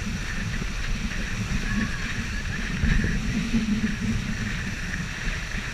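Wind buffeting the microphone and water rushing and splashing past an inflatable banana boat as it is towed at speed, a steady noisy rush with a heavy, uneven low rumble.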